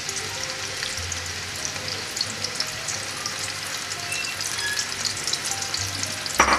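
Sliced onions frying in hot ghee in a wok-style pan: a steady sizzle full of fine crackles and spits. A single knock sounds near the end.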